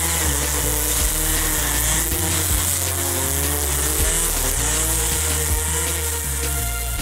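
Corded electric string trimmer running steadily as it cuts dry grass, mixed with background music that has a stepping bass line.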